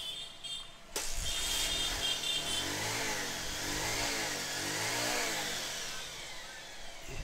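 Bajaj Pulsar 150 DTSI single-cylinder engine starting about a second in, then revved up and down three times with the throttle before settling to a steady run. It is running on a borrowed carburettor from another bike, which shows the bike's own faulty carburettor was why it would not start.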